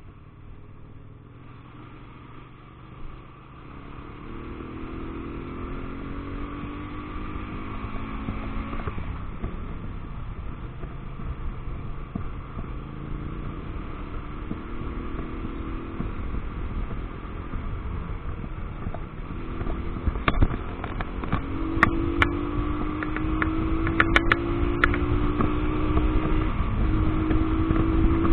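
Motorcycle engine pulling through the gears as the bike accelerates, heard from a camera on the bike: the engine note climbs, drops at a gear change about nine seconds in and climbs again, while wind noise grows louder with speed. A few sharp clicks sound near the end.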